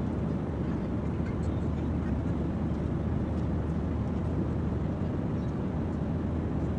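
Steady cabin noise of a jet airliner in flight: the even, low drone of engines and rushing air.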